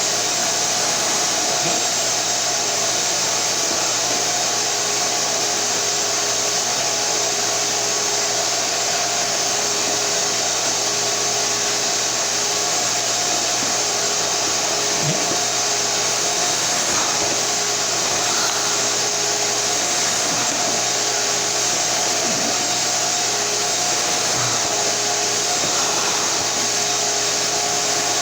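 Shop-Vac Super 1300 wet/dry vacuum running steadily: an even rushing noise with a faint, steady whine.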